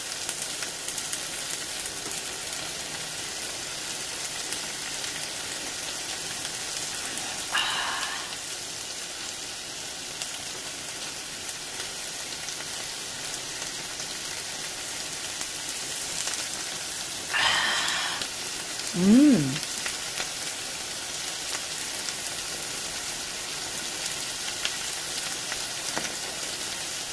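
A pot of yukgaejang boiling steadily, with a constant bubbling, sizzling hiss. Twice there is a short slurp as the soup is tasted from the spoon, and the second is followed by a brief hummed "mm".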